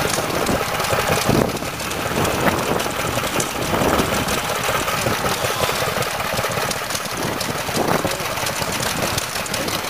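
Small vintage stationary engine running steadily at idle, with a rapid, even beat.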